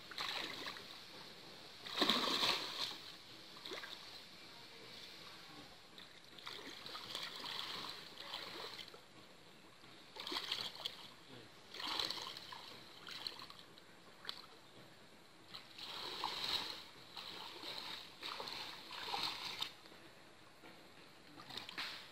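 Shallow pond water splashing and sloshing in irregular bursts as two men wade and drag a fine-mesh mosquito net through it. The loudest splashing comes about two seconds in.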